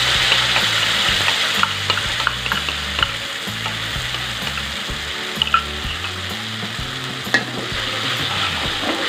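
Blended chili and shallot spice paste sizzling as it fries in hot oil in a metal wok, a steady hiss. A metal spatula scrapes and taps against the pan a few times as the paste is stirred.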